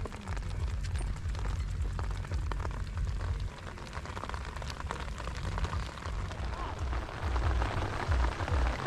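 Mountain bike rolling down a rocky trail, the tyres giving a crackling hiss over stones and wet ground, under a heavy, uneven wind rumble on the camera's microphone.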